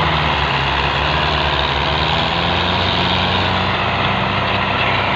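Belarus tractor's diesel engine running hard and steady under heavy load, pulling a fully loaded sugarcane trolley that is stuck in the field.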